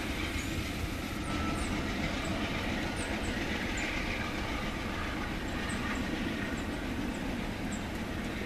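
Amtrak passenger train pulling away, a steady rumble of its wheels on the rails that slowly grows fainter.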